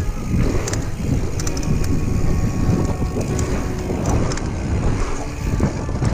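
Wind buffeting a bike-mounted action camera's microphone over the rumble of a mountain bike's knobby tyres rolling on packed dirt, with irregular light rattles and clicks from the bike over the bumps.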